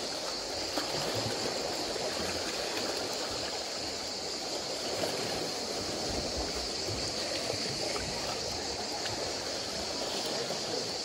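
Small sea waves lapping and washing over rocks at the shoreline, a steady wash of water.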